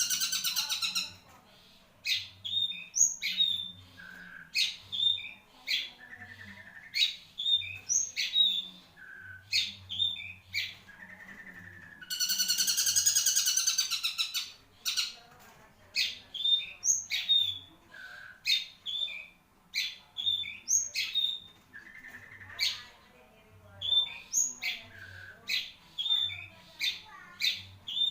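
Long-tailed shrike (cendet) singing: a run of short, sharp, varied chirps and whistled notes, broken twice by a long harsh rasping burst, once right at the start and again about halfway through.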